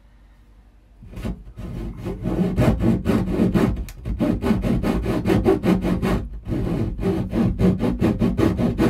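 Pull saw cutting through a thick meranti wooden bulkhead in fast back-and-forth strokes. It starts about a second in and briefly stops twice, about four and about six seconds in.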